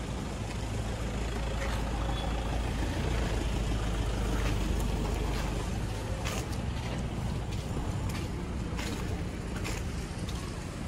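Wind rumbling on the microphone, strongest in the first half, with a few faint clicks later on.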